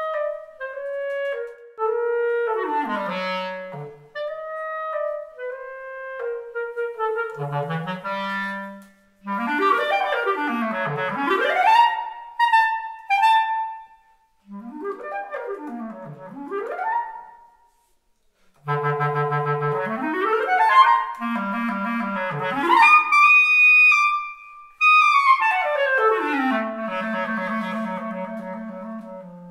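Unaccompanied clarinet playing fast runs that sweep up and down its range, with short breaks about nine, fourteen and eighteen seconds in, rising to high notes later on before coming down to low held notes near the end.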